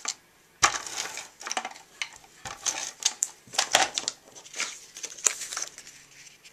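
Paper and cardstock being handled while a mat is stuck in place: irregular rustling and crinkling with small clicks and taps, starting about half a second in and dying away near the end.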